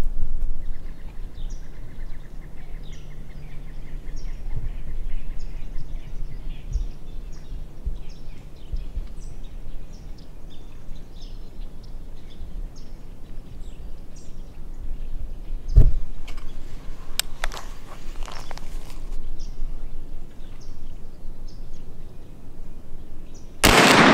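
Small birds chirping over a marsh, with one knock about two-thirds through. Near the end a single muzzleloader rifle shot goes off, a loud boom with a long fading echo.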